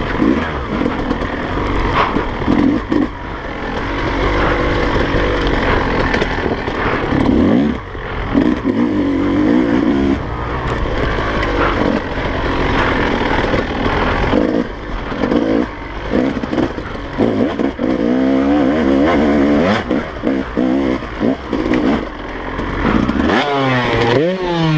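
2017 Yamaha YZ250 two-stroke single-cylinder engine revving up and down repeatedly on tight, rough forest single track, with clatter and scraping from the bike over the bumps. Near the end the revs fall away as the bike goes down.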